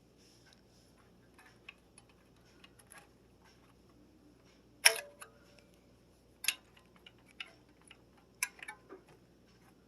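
Light metallic clicks and taps of an Allen hex key turning the pad adjuster on a mechanical disc brake caliper, with three sharper clicks about midway and near the end, the first ringing briefly.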